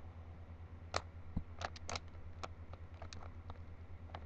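Rubik's Cube being turned by hand: its plastic layers click and clatter in a few quick runs of turns, over a steady low hum.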